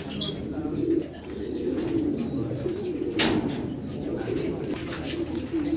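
Domestic pigeons cooing in a pigeon loft, many birds at once in a steady low chorus. A single sharp click comes about three seconds in.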